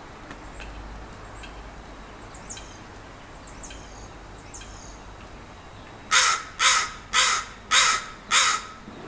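Five loud, harsh bird calls in a quick, even series, about two a second, in the second half. A few faint, high chirps come before them.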